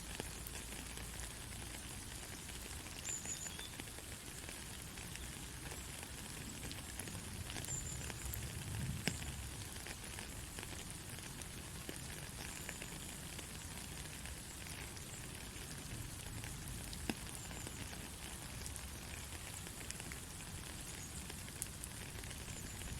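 Soft, steady rain: an even hiss of falling drops with scattered single drips, and brief faint high chirps every few seconds.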